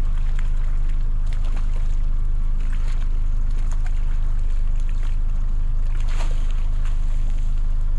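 Boat's outboard motor running steadily at trolling speed, a constant low hum, with a few short splashes from a hooked rainbow trout thrashing at the surface beside the boat, the loudest about six seconds in.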